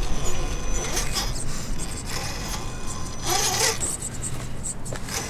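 Scale RC rock crawler climbing rock: a thin, steady, high motor-and-gear whine, with the tires and chassis scraping and grinding on the stone in several bursts, the biggest about three and a half seconds in.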